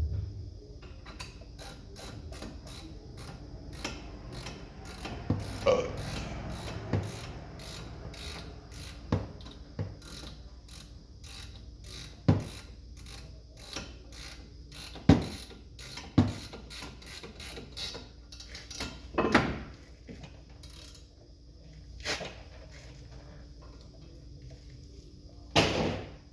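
Ratchet wrench clicking in quick runs as a bolt is turned, about three or four clicks a second, with several louder metal knocks in between.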